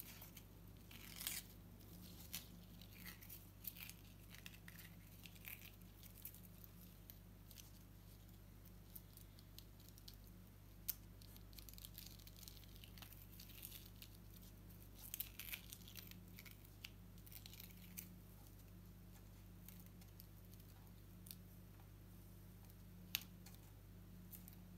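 Paper backing being picked up and peeled off a sticky sand-painting board: faint, scattered crackles and short tearing sounds, with a few louder snaps about a second in, midway and near the end.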